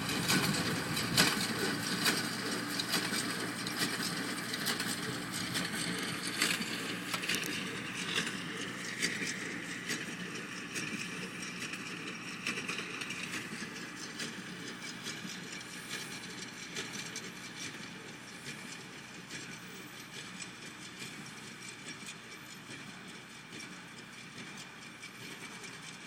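John Deere 24T hay baler running while baling, its mechanism clattering and knocking steadily. It grows gradually fainter over the stretch.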